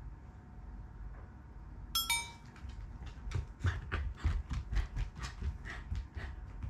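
Black Shiba Inu's paws and claws ticking on the floor as he walks, quick regular steps about five a second. About two seconds in, a short metallic clink comes first.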